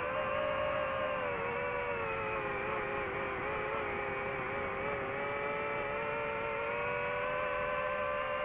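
DJI FPV drone's motors and propellers whining steadily in flight: several tones that sag slightly a few seconds in and rise again as the motor speed changes.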